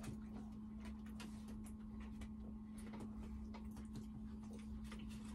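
Quiet eating at a table: faint, scattered small clicks and light rustles of fingers and forks on foil takeaway trays, over a steady low hum.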